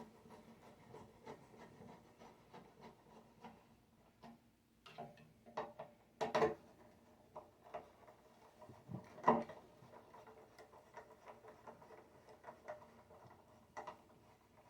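Screws being turned in by hand with a screwdriver to fasten a handle onto a heater: faint, irregular small clicks and rubbing, with a few louder knocks around six and nine seconds in.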